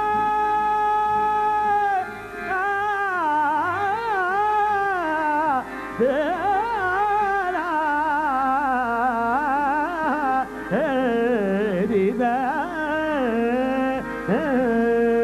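Male voice singing a ghazal over harmonium: a long held note, then about two seconds in a wordless melismatic run with rapid pitch bends and ornaments.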